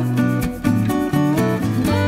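Background music: acoustic guitar picking a quick run of notes, some of them bent or slid in pitch.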